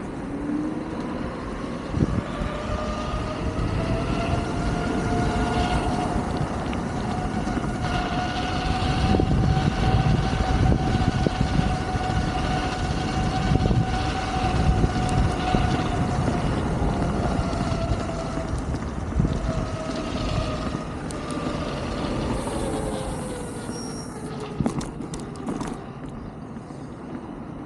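Wolf King GT Pro electric scooter's hub motors whining as it rides: the pitch rises as it speeds up, holds steady, then falls as it slows near the end, over a low rumble of road and wind noise.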